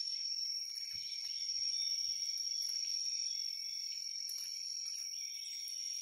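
Steady, high-pitched insect chorus: one continuous shrill tone over a fainter hiss. There are a few faint knocks and rustles from hands working on the plant.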